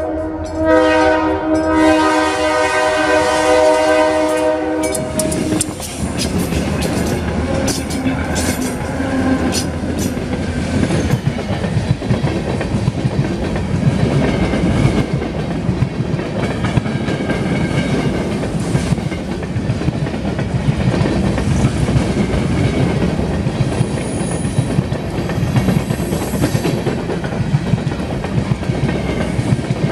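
Diesel locomotive's air horn sounding a chord, with two short breaks, until it cuts off about five seconds in as the locomotive reaches the crossing. Then a train of empty covered hopper cars rolls past close by: a steady rumble of wheels with a rhythmic clickety-clack over the rail joints.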